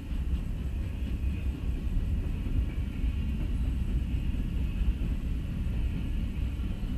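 Freight train's boxcars and covered hoppers rolling past on the adjacent track: a steady low rumble of wheels on rail.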